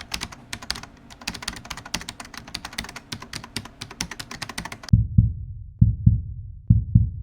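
Fast, irregular clicking like keys being typed, about ten clicks a second, stopping abruptly about five seconds in. Then a deep heartbeat thump takes over, double beats about a second apart.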